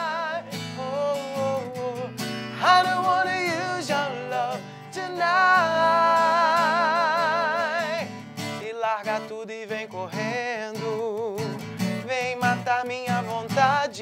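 A man singing to a steel-string acoustic guitar. The first half holds long notes with a wide vibrato; the second half moves into shorter, quicker phrases.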